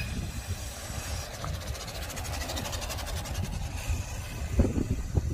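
The electric motor of a radio-controlled model runs with a faint high whine, over a low, uneven rumble. A hiss rises and falls in the middle.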